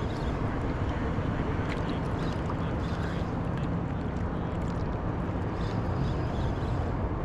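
Steady sloshing and lapping of small surf water around a surfboard, with faint scattered splashy ticks.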